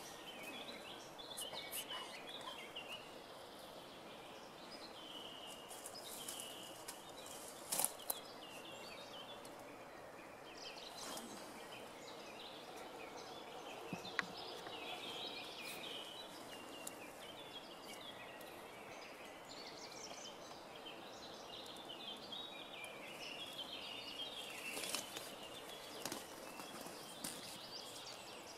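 Faint outdoor hiss with birds chirping and calling throughout. A pair of sharp clicks about 8 seconds in, and another around 14 seconds in.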